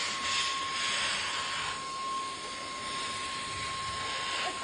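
Cordless stick vacuum with a crevice nozzle running, a steady high whine over rushing air. The air noise swells and eases as the nozzle moves over a cat's fur.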